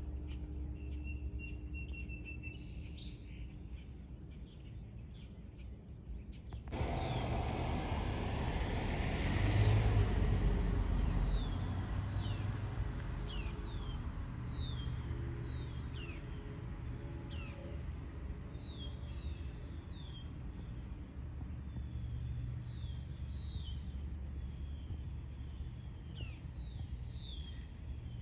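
Birds calling with many short, downward-sweeping chirps, repeated through the second half, over a steady low outdoor rumble that steps up suddenly about seven seconds in, swells a few seconds later and eases off.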